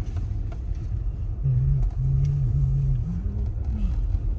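Steady low rumble of a car's engine and tyres heard from inside the cabin while driving. A low held tone comes and goes a few times in the middle, rising in pitch near the end.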